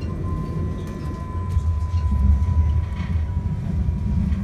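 Cabin running noise of a Class 399 Citylink tram-train in motion: a low rumble of the wheels on the track, swelling a little in the middle, with a steady high-pitched whine over it and a few faint clicks.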